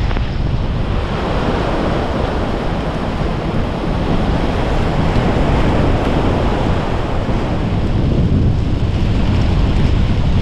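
Strong wind buffeting the microphone during a heavy rain squall, with rain and surf mixed into a loud, steady rush of noise.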